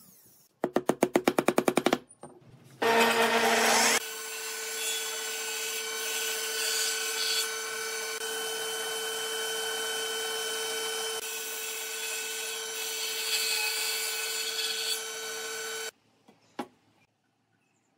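Table saw running and ripping a long wooden board: a steady machine hum with cutting noise for about twelve seconds that stops abruptly. Before it comes a short rapid rattle of about fifteen pulses a second, then a brief loud burst of tool noise.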